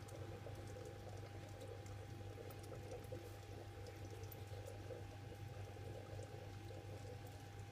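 Faint, steady bubbling and trickling of aquarium water, over a low steady hum and a thin steady high tone.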